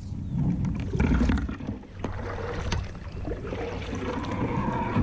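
Water splashing and knocks against a kayak as a hooked largemouth bass is pulled free of a submerged branch and brought in, with uneven scraping and clicking throughout.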